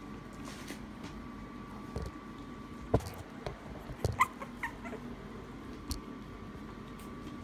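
Maltese puppies at play, with a few short high-pitched yips about four seconds in, among scattered knocks and bumps from their scuffling.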